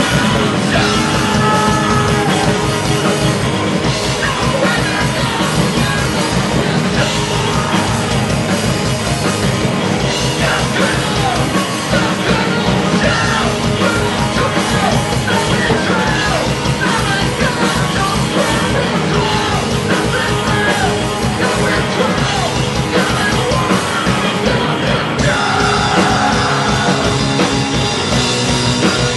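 A rock band playing loud and fast live on electric guitars, bass guitar and drum kit, with a singer yelling into a microphone over it.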